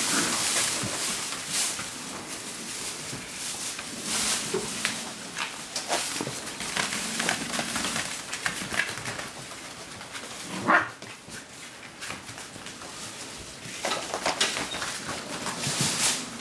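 Puppies scuffling and playing with toys on a hard floor, with scattered clicks and a few short high cries, the loudest about eleven seconds in.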